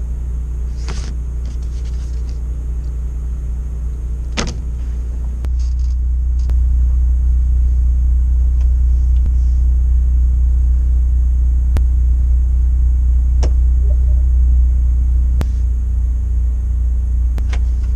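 A steady low engine rumble, as of an engine idling, that gets louder about five and a half seconds in, with a few sharp clicks and taps over it.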